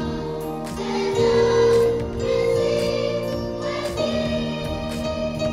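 Christmas carol played on a Yamaha electronic keyboard, with held chords over a light, steady beat, and a children's choir singing.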